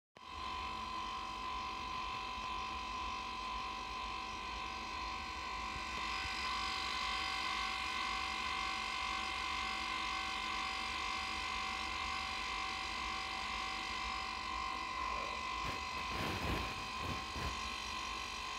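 Electric machinery running steadily, a continuous hum with a prominent high whine. A few short irregular knocks and rustles come near the end.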